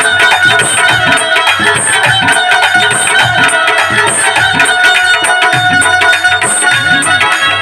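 Background music with a steady drum beat and a bright accent recurring about once a second.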